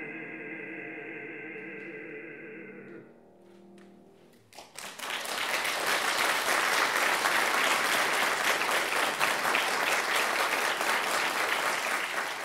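A baritone holds a last sung note with vibrato over piano, fading out about three seconds in. After a short pause an audience breaks into steady applause that continues through the rest.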